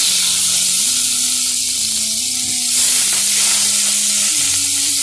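Beef seekh kebabs sizzling in shallow oil on a hot grill pan as they are turned over with a silicone spatula: a steady frying hiss.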